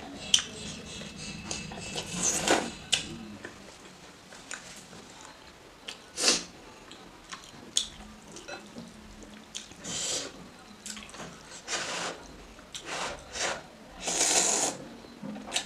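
Close-up eating sounds of spicy instant noodles: wet chewing and several short slurps, with a long slurp of noodles near the end. A few sharp clicks of chopsticks against a glass bowl.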